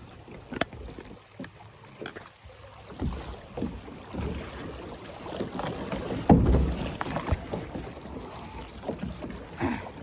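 Water rushing past a plastic sit-on-top kayak as it drifts quickly through a shallow riffle, with irregular knocks and one heavy low thump about six seconds in.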